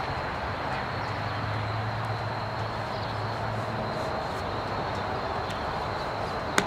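A bandsaw sawmill's engine idling steadily, with a sharp knock near the end.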